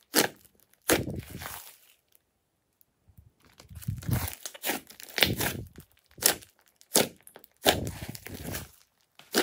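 Hands squeezing and pressing a large mound of glossy slime: a string of wet squelches and sharp clicking pops, each starting suddenly and trailing off. There is a quiet pause from about two to three and a half seconds in.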